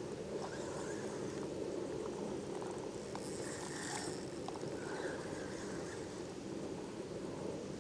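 Steady low rumbling noise of wind and moving water around a fishing kayak, picked up by its mounted action camera. A few faint clicks sound while the line is reeled in, and there is a brief hiss about three seconds in.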